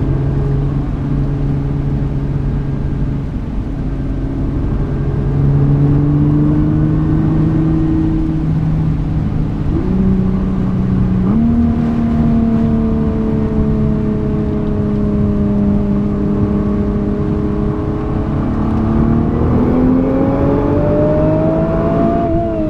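Nissan GT-R's twin-turbo V6 driving on the road: the engine note steps up twice in quick succession about ten seconds in as the dual-clutch gearbox downshifts, slowly falls away, then climbs again under throttle near the end, over steady road and tyre noise.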